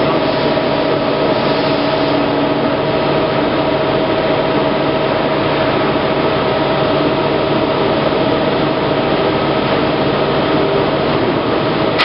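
Plate rolling machine running steadily while its rolls turn a steel sheet into a cylinder: a continuous machine hum with a steady whining tone.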